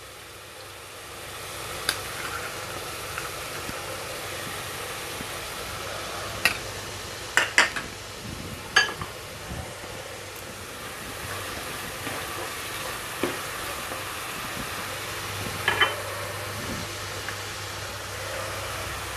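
Onion, garlic and cumin paste with chilli powder and turmeric sizzling steadily in hot oil in a nonstick kadai. A few sharp clicks of a spoon against the pan or bowl as the spices are stirred in.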